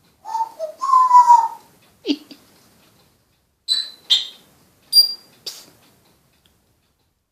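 A pet making a run of short burp sounds: a pitched, gliding call in the first second and a half, a short downward sweep at about two seconds, then several brief high chirps before it falls quiet.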